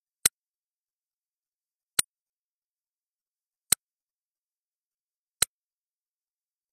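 Four sharp, very short clicks about 1.7 seconds apart, with dead silence between them.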